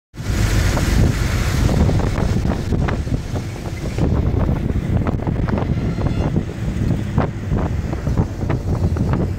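Wind buffeting the microphone in an open-top vintage car on the move, over a low engine and road rumble, with frequent short knocks and rattles.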